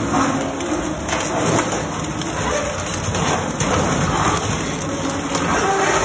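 Twin-shaft shredder with hooked cutter blades crunching and tearing a wire-mesh basket with a metal-rod frame. The metal breaks up in a dense, continuous crunching and scraping.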